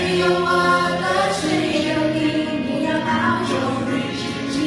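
A small group of voices singing a song together, with long held notes.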